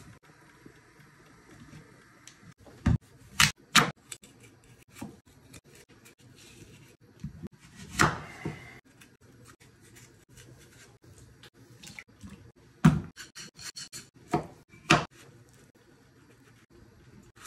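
Kitchen knife cutting and scraping squash and zucchini on a bamboo cutting board: irregular sharp knocks of the blade on the board, with a longer cutting sound about eight seconds in.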